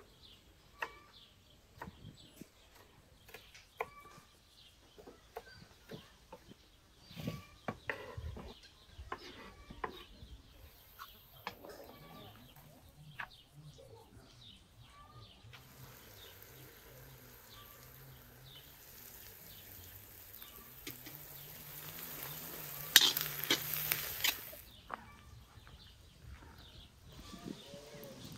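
Knife strokes on a wooden cutting board as red peppers are sliced, roughly one a second, with short bird chirps in the background. From about halfway through, a steady hiss with crackles takes over, loudest a few seconds before the end.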